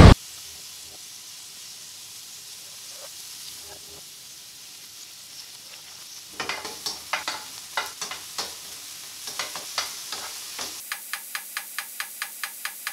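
Olive oil and garlic sizzling softly in a frying pan. About halfway through, irregular clicks and taps start as mushrooms are dropped in by hand and stirred. Near the end a regular ticking, about four a second, takes over.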